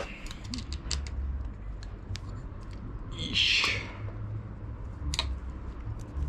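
Scattered light clicks and taps of hand tools on a mountain bike's stem and headset, over a low steady hum.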